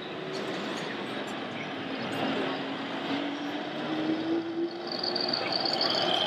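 Radio-controlled model truck driving on a course over a steady exhibition-hall din. Its motor tone rises slowly in pitch from about two seconds in and stops a little after five seconds. A high, steady whine comes in near five seconds.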